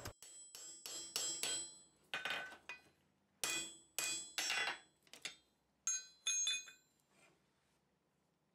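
Hand hammer striking a punch driven through a red-hot steel hammerhead on an anvil, punching out the eye. About a dozen blows come in uneven groups, several with a metallic ring, and stop about seven seconds in.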